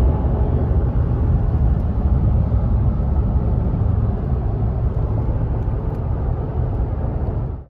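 Steady low rumble of road and engine noise inside the cab of a pickup truck driving along, cutting off suddenly at the end.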